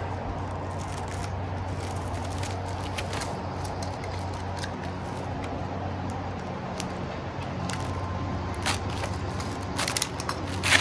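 Wrapping being slit and a paper label peeled off a rolled foam yoga mat: faint scratches and crinkles, with a few sharper crackles near the end. A steady low background hum runs underneath.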